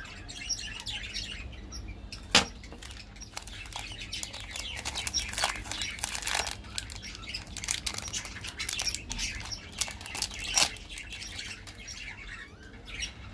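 Foil and plastic lollipop wrappers crinkling and crackling as they are peeled open by hand, with two louder sharp snaps, one about two seconds in and one about ten seconds in.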